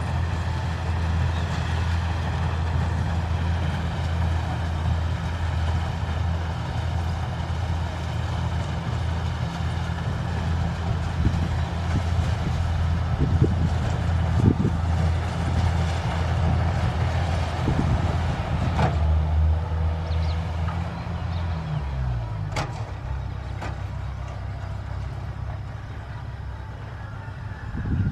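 Kubota rice combine harvester's diesel engine running steadily at working speed. About three quarters of the way through its pitch drops as the engine slows. A few sharp knocks come from the machine in the second half.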